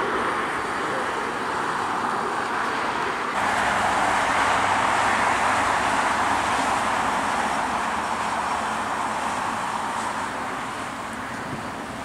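Steady rushing noise of distant jet airliner engines at an airport, mixed with road traffic. It jumps abruptly louder about three seconds in and eases slightly near the end.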